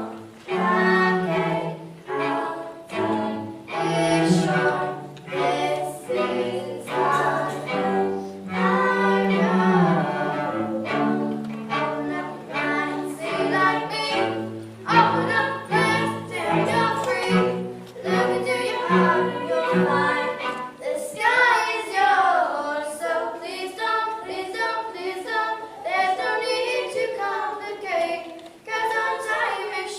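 A small string group playing a tune: bowed strings with a moving cello bass line under the melody. The bass part drops out about 21 seconds in, leaving the higher parts going on alone.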